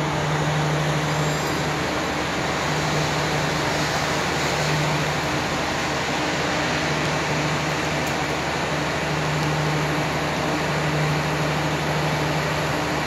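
Heavy rain falling, a steady, even hiss, with a low hum that swells and fades several times.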